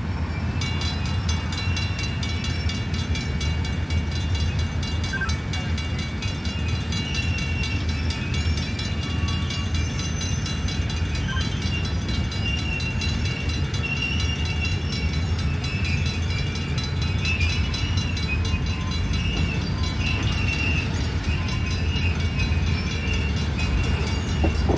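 Freight boxcars rolling slowly by on jointed track, a steady low rumble of steel wheels on rail, with a thin high wheel squeal coming and going.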